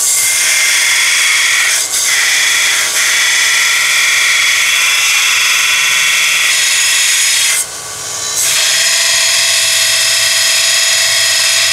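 1x30 belt sander with a Norton Blaze belt grinding a steel twist drill bit: a steady high hiss of the belt cutting over a steady motor whine, roughing the point to a 118-degree included angle. The grinding lets up briefly about two seconds in and again for under a second near eight seconds.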